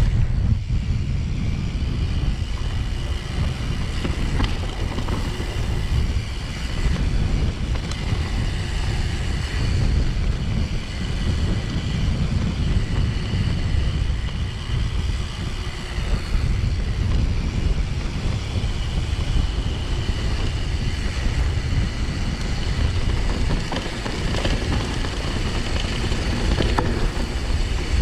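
Mountain bike riding downhill on a dry dirt trail: steady wind rumble on the microphone over the rolling of knobbly tyres and the rattle of the bike.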